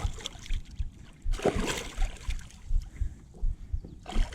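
Water splashing and sloshing beside a stand-up paddleboard as a hooked northern pike is pulled in, with a louder burst about a second and a half in and another near the end, over repeated low bumps.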